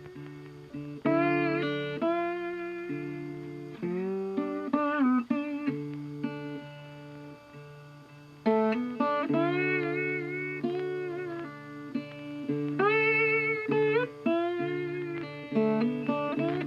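Background music: plucked guitar notes with sliding pitches, each phrase struck and left to ring and fade.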